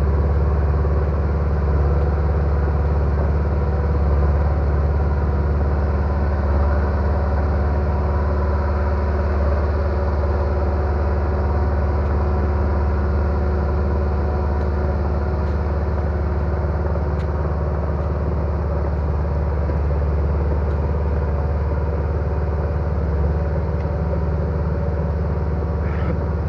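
Heavy equipment engine running steadily at a constant speed, with a strong low hum.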